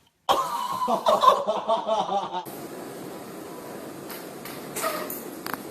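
A person's loud drawn-out groan during a chiropractic adjustment, cutting off suddenly after about two seconds. A steady hiss follows with a few faint clicks.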